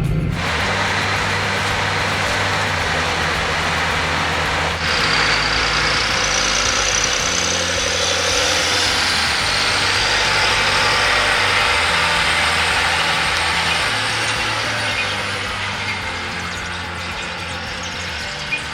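John Deere tractor engine running under load with potato-harvesting machinery working. About five seconds in, a high whine comes in and holds.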